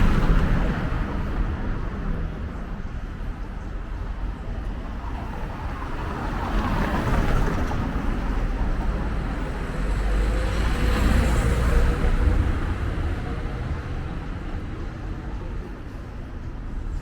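Road traffic: motor vehicles passing over a steady low rumble, swelling twice, about a third and two thirds of the way through.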